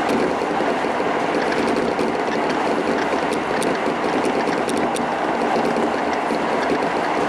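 Keisei commuter train heard from inside the carriage, running at speed: a steady, loud rush of wheels on rail and running gear.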